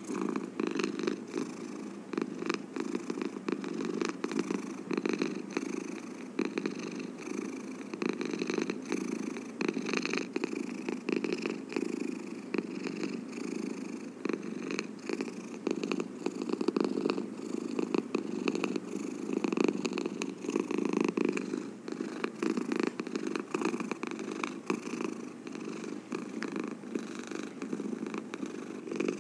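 Cat purring steadily and close up, the purr swelling and easing a little as it goes.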